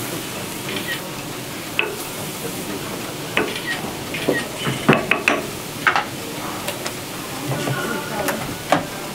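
Thin crepe batter sizzling on a hot round crepe griddle as it is spread with a wooden T-shaped spreader: a steady hiss with scattered sharp clicks and taps.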